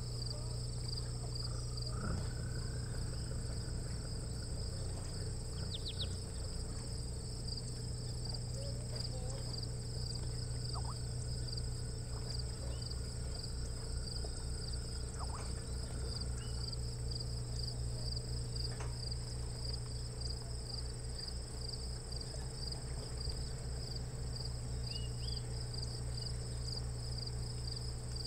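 A steady, unbroken chorus of insects trilling, with a low hum underneath and a few faint, brief bird chirps.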